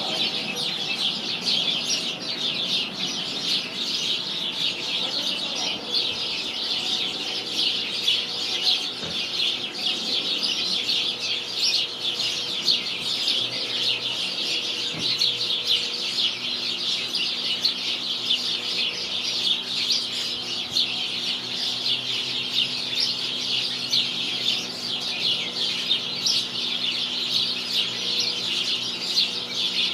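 A flock of sparrows chirping together, many short overlapping chirps making one continuous chatter.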